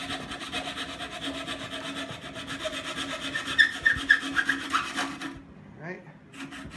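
Flush-cut saw cutting off a protruding wooden dowel flush with a chair seat, in quick, even back-and-forth strokes. The sawing stops about five seconds in and starts again near the end.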